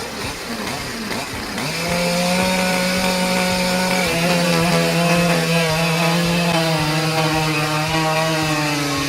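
Chainsaw engine running at high speed. It comes in strongly about two seconds in and holds a steady note that slowly sinks in pitch.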